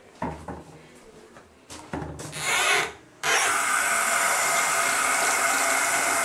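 Bathroom sink faucet being worked: a few knocks and a brief spurt of water, then about three seconds in the tap opens and water runs steadily into the sink basin.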